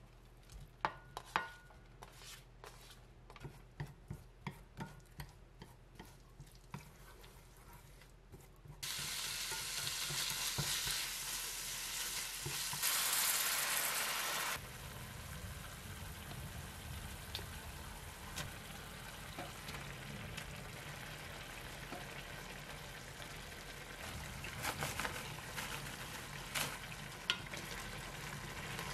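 A spoon clicks and scrapes against a frying pan while minced pork and sauce are stirred. About nine seconds in, a loud frying sizzle starts suddenly. Water poured into the hot pan then hisses louder for about two seconds, after which the sauce settles into a lower sizzle and bubble, with occasional spoon clicks.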